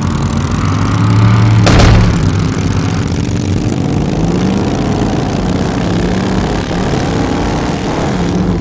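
Vehicle engines running and revving, their pitch rising and falling, with one sharp bang a little under two seconds in.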